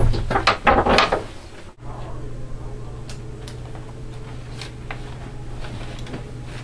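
A quick run of knocks and clatter, like a door being handled, in the first second and a half. It cuts off abruptly and gives way to a steady low electrical hum with a few faint clicks.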